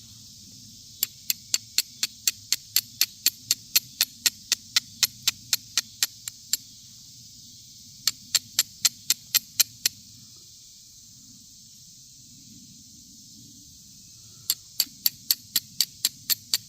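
A carbon-steel striker struck repeatedly against flint to throw sparks onto char cloth. The sharp scraping clicks come about four a second in three runs, with pauses between them.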